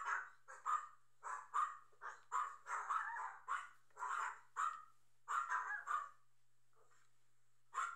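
A dog barking over and over in short barks, about three a second, falling quiet for about a second and a half near the end.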